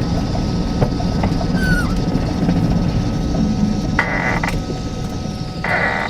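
Electric van on the move: its three-phase induction motor and inverter whine over a low drivetrain rumble with rattles. The high whine falls slowly in pitch after about four seconds as the van slows, and two short bursts of hiss come near the end.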